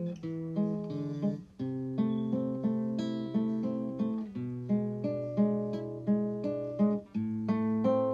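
Background music: acoustic guitar playing plucked notes in a steady rhythm, changing chords every few seconds.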